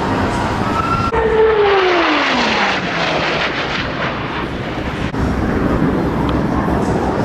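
Airplane flying past, its engine note dropping steadily in pitch as it goes by, over a loud engine rush.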